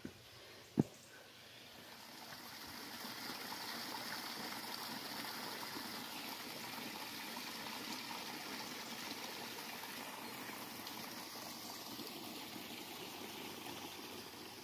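Small forest waterfall, water spilling over a low stone ledge with a steady rushing splash that swells in after about two seconds and fades near the end. A sharp thump, a footstep on the dirt path, in the first second.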